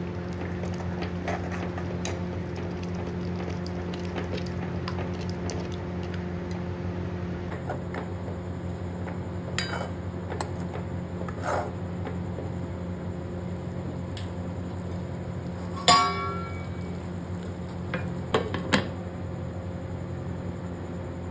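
A spoon stirring a pan of simmering curry gravy, with a few sharp clinks against the pan; the loudest clink, about three-quarters of the way through, rings briefly. A steady low hum runs underneath.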